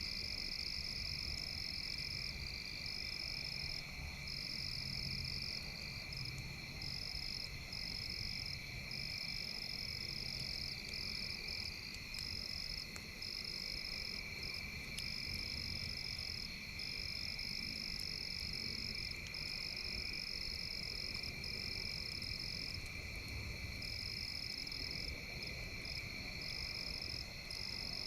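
Steady night chorus of frogs and insects: continuous high-pitched trilling in two layers, the higher one breaking off briefly every second or two.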